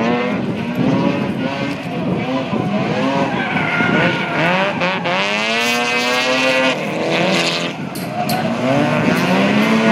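Two drift cars' engines revving hard in tandem, pitch rising and falling again and again, with one long climb of revs around the middle. Tyres squeal as the cars slide sideways.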